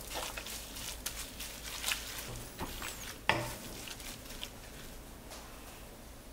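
Wooden spatula stirring and tossing stir-fried crown daisy greens in a nonstick wok, with irregular scrapes and taps against the pan, the loudest about three seconds in. The stirring dies down over the last couple of seconds.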